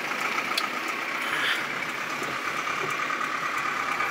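Vehicle engine running, heard inside a pickup's cab, over a steady wash of rain and road noise, with a few faint ticks.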